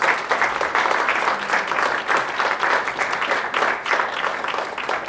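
Small audience applauding steadily.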